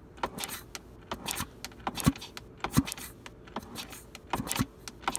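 An irregular run of sharp metallic clicks and clunks, with short low thumps about two and three seconds in and twice more near four and a half seconds. This is a 1999 Yamaha YZ125 two-stroke being turned over by its kick-starter, with the top end off, during a check for spark.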